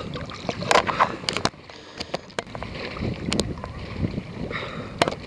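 Choppy lake water lapping and splashing close to the microphone, with wind on the microphone and several short, sharp splashes.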